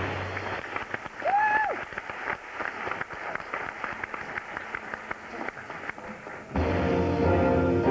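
Audience applause after the music stops, with a single whooping cheer about a second and a half in. About six and a half seconds in, the band's music starts again.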